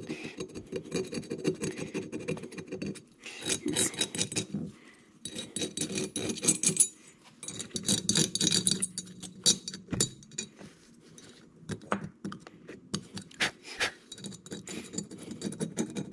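An old metal reed valve scraping old gasket residue off the sealing surface of a Sanborn 755 air-compressor pump head. It goes in bursts of scraping strokes a second or two long, with short pauses between.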